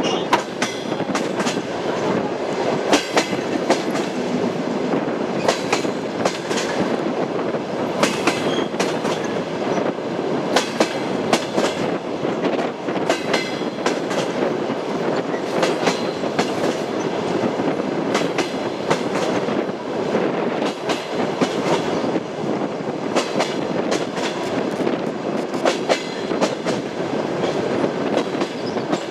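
Train wheels knocking over rail joints: a steady rolling rumble with clickety-clack strikes every two or three seconds, often in quick pairs or groups, as a railway carriage runs along the track.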